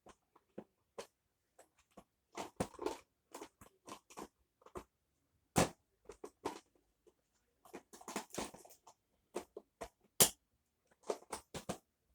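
Handling noises from the cordless vacuum and its charger being moved about: irregular clicks, taps and crackly rustles, with two sharper clicks about five and a half and ten seconds in.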